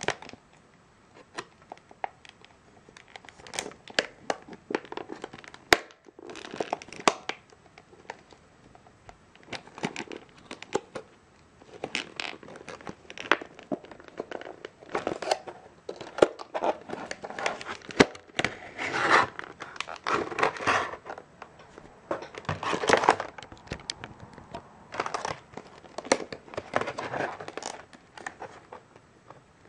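Clear plastic blister packaging being pried and peeled apart by hand: stiff plastic crackling and crinkling in irregular bursts, with sharp snaps as it bends and tears.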